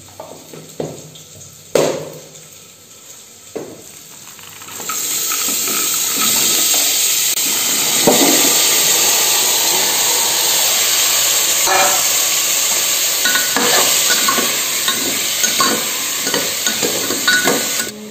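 Potato chunks and chickpeas frying in hot oil in an aluminium pressure cooker. First come a few knocks and clinks, then from about five seconds in a loud, steady sizzle with the clatter of a spoon stirring against the pot, which stops just before the end.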